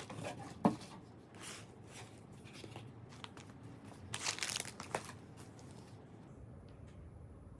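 Parcel packaging being unwrapped by hand: irregular crinkling and tearing, with a sharp click just under a second in and a louder burst of rustling around four seconds in, stopping about six seconds in.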